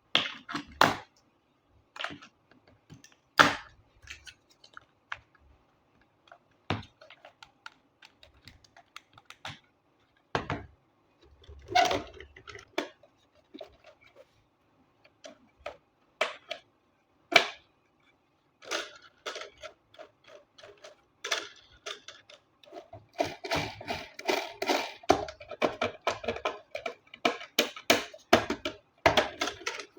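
Hands unpacking toys: scattered clicks and knocks of cardboard and plastic packaging being handled, turning into a dense run of clattering and rustling in the last quarter.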